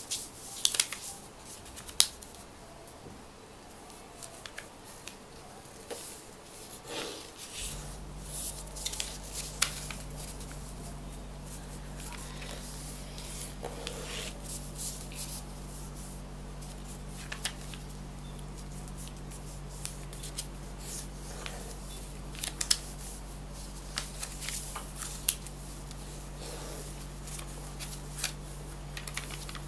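Paper being worked by hand for origami: quick, irregular crisp crackles and rustles as it is folded and creased. A steady low hum comes on about a quarter of the way in and stays.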